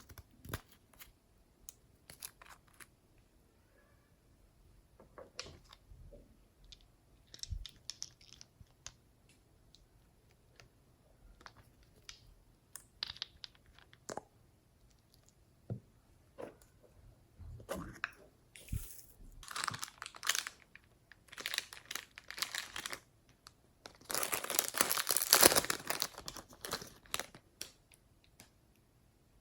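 Clear slime with clay and makeup mixed in, worked by hand: scattered sticky clicks and crackles that thicken into longer stretches of dense crackling in the second half, loudest about four seconds from the end.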